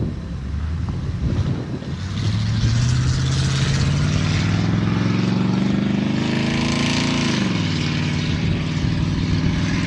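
Vehicle engine accelerating, its pitch climbing steadily for about five seconds and then dropping quickly near the end as at an upshift, over steady road and wind noise.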